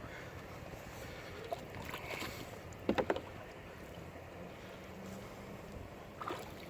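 Quiet wind and water noise in a kayak, with a quick cluster of three sharp knocks about three seconds in and a few lighter taps near the end.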